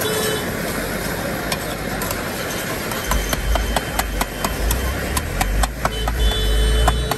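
Metal spatula stirring egg bhurji in a large pan, scraping and clinking against the pan's side, with a quick run of sharp clinks from about three seconds in. Street noise and a low rumble carry on underneath.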